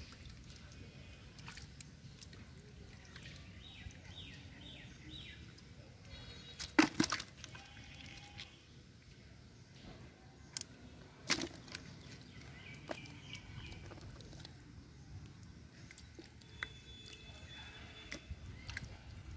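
Hands splashing and sloshing in a muddy, water-filled hole and in a bucket of water where caught fish are dropped, with dripping. Two sharp, louder splashes stand out, one about a third of the way through and another a few seconds later.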